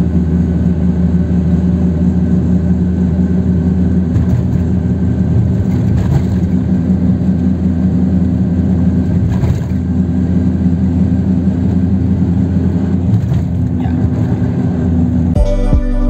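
Volkswagen Pointer driving at highway speed: a steady drone of engine and road noise. Music with a pulsing beat comes in near the end.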